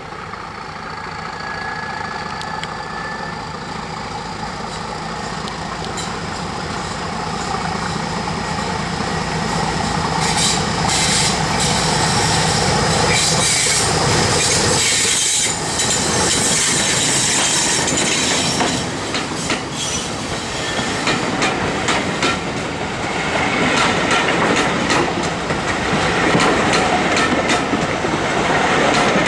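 Class 31 diesel-electric locomotive with its English Electric V12 engine working hard, growing steadily louder as it approaches and passing about halfway through. Its coaches follow, rolling by with a repeated clickety-clack of wheels over the rail joints.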